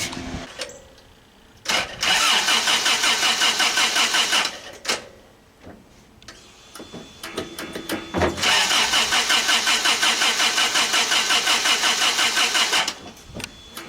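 Toyota pickup's starter cranking the engine in two long rhythmic bursts, with a short blip before the first; the engine turns over but never catches, a no-start.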